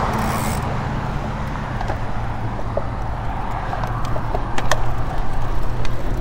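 Wind noise on the camera microphone as the bicycle rolls along, with the low hum of a pickup truck's engine pulling away ahead. A few light clicks come about four to five seconds in.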